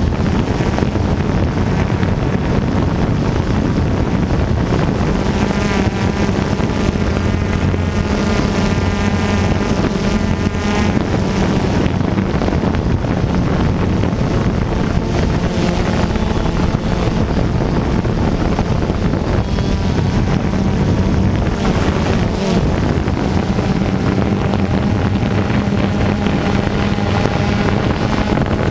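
A waterfall rushing steadily: a loud, unbroken roar of falling water.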